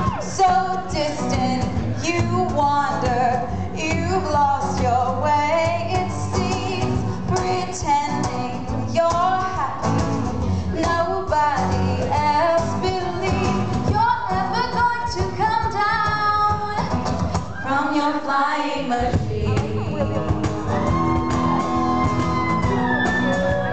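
A woman singing live into a microphone with a backing band that includes guitar. The band's low notes drop out for about a second near the end, then come back under the voice.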